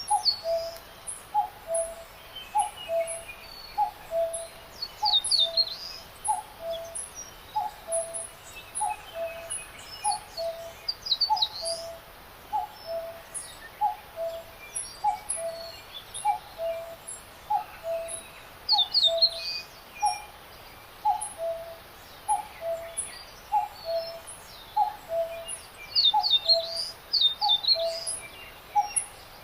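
Birds singing: one call repeats steadily about twice a second, while short runs of high, falling chirps from other birds break in now and then.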